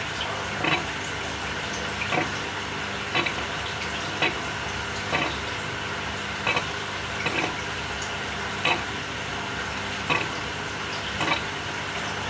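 Samsung 6.5 kg top-loading washing machine agitating: water and laundry swish in short surges about once every second or so, over a steady running sound.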